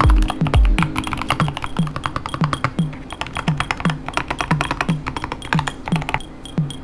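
Rapid typing on a Keychron K2 HE keyboard, with Gateron magnetic switches and PBT keycaps, over electronic background music with a steady kick beat about twice a second. The music fades near the end while the keystrokes carry on.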